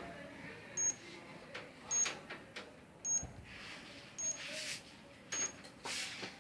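Securico wireless alarm panel giving short high-pitched beeps at an even pace, about one a second, with faint rustling and soft knocks of handling in between.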